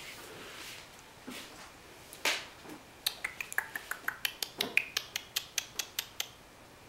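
A person making a quick, even run of about eighteen sharp clicks, roughly five a second and some with a slight squeak, to get a puppy's attention. One louder click comes shortly before the run.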